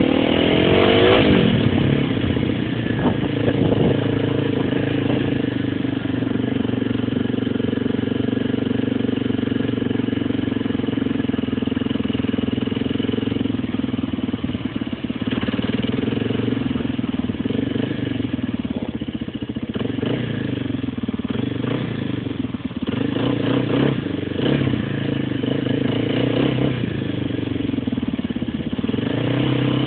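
Motorcycle engine running while being ridden on the street, its pitch rising and falling with the throttle, most clearly in the first couple of seconds and again near the end.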